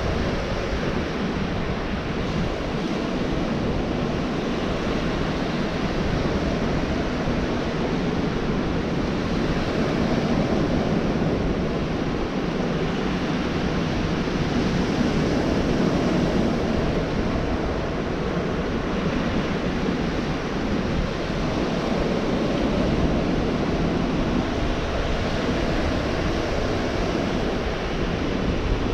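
Ocean surf breaking on a beach: a continuous wash of waves that swells and eases every few seconds.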